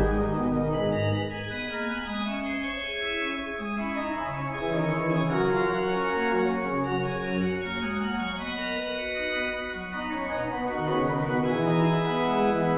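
Background organ music playing slow chords, each held for about a second before moving to the next.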